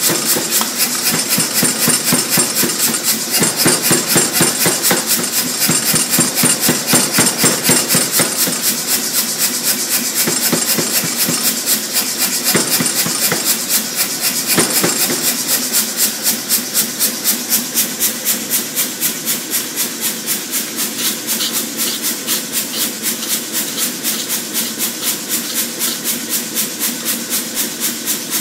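Power hammer striking a red-hot steel bar in rapid, evenly spaced blows, about three a second, a little softer after about fifteen seconds.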